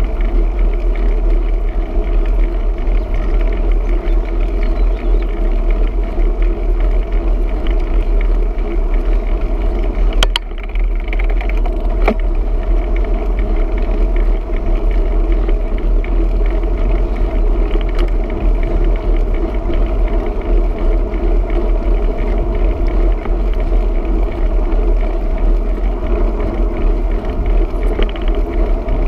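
Wind and road noise on a bicycle-mounted camera while cycling at speed: a loud, steady low rumble with a steady hum above it, and a few brief clicks.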